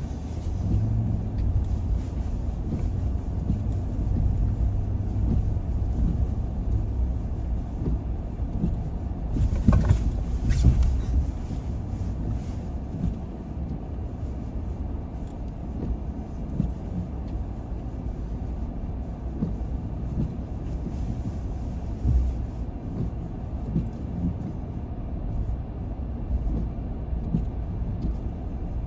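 A car driving along, with a steady low rumble of engine and tyres on the road. There is a louder, rougher stretch about ten seconds in.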